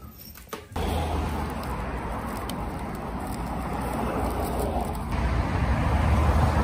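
Steady road and engine noise of a moving car, a low rumble with a wash of noise above it, cutting in abruptly just under a second in.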